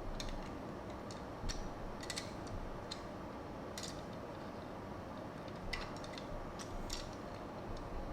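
Scattered light clicks and taps as hands unbox and handle small die-cast Tomica toy cars in their plastic and cardboard packaging, over a steady low background hum.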